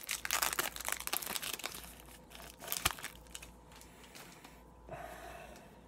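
Foil wrapper of a trading-card pack crinkling and tearing as it is opened by hand, dense for the first two seconds, with one sharp snap near three seconds, then fainter rustling as the cards are handled.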